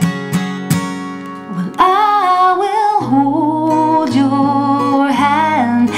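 Acoustic guitar strumming. From about two seconds in, a wordless sung melody with vibrato comes in over the guitar, which keeps playing underneath.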